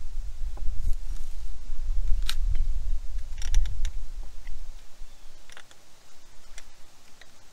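Scattered small clicks and metal taps of a wrench working a nut onto a battery terminal post, a few in a quick cluster about three and a half seconds in, over a low rumble that fades about halfway through.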